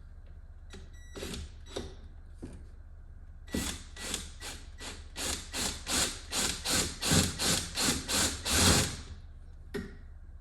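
Power drill with a 3/16-inch bit drilling out an ignition lock tumbler, run in short, even pulses about three a second for around five seconds. A few light clicks come before it as the bit is set in place.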